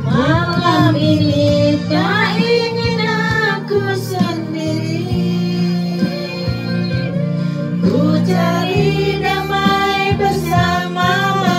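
A woman singing karaoke into a handheld microphone over a recorded music backing track.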